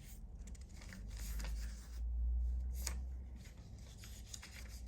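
Handling noise: something is rubbed and moved about close to the microphone, with a low rumble and a few light clicks.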